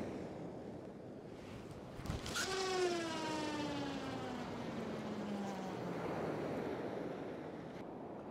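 Waves breaking and washing on a shingle beach, with wind on the microphone. About two seconds in, a long tone with many overtones starts and slides slowly down in pitch for about four seconds, louder than the surf.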